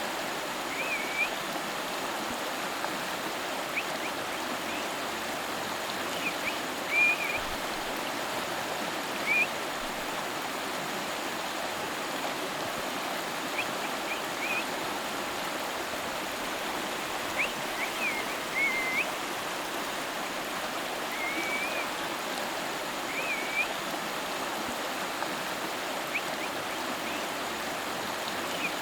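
A river flowing steadily over rocks, a continuous rushing of water. Short high chirps come through every few seconds.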